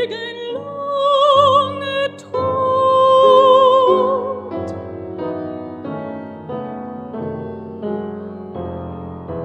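Mezzo-soprano singing a German Lied with piano accompaniment: she holds a long note with wide vibrato, the voice stops about four and a half seconds in, and the piano carries on alone.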